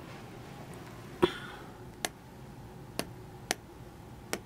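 Five sharp taps of a fingertip on an interactive touchscreen board while items are picked from its on-screen menu; the first, about a second in, is the loudest.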